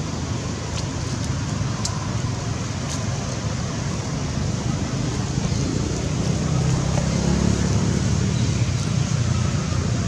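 Steady outdoor background noise: a low rumble with an even hiss over it, growing a little louder in the second half, with a few faint ticks in the first few seconds.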